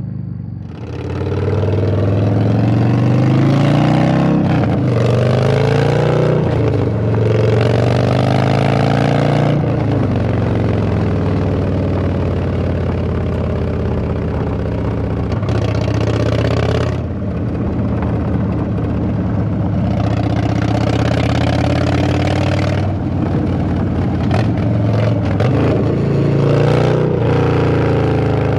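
Harley-Davidson Dyna Twin Cam V-twin running through an SP Concepts Lane Splitter aftermarket exhaust, loud and deep. Engine speed climbs and drops again and again, with a steadier stretch in the middle.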